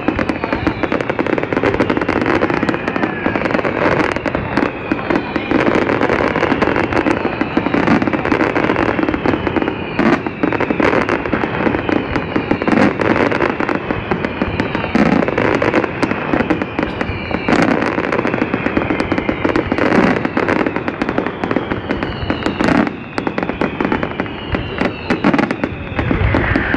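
Castillo fireworks display: a dense, continuous barrage of crackles and bangs, with repeated whistles falling in pitch.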